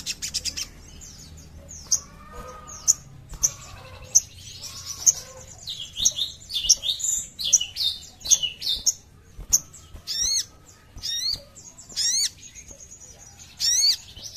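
Sunbird (sogon, sogok ontong) singing: quick bursts of high, sharp chirps and twitters, then about ten seconds in a string of repeated fast sweeping notes.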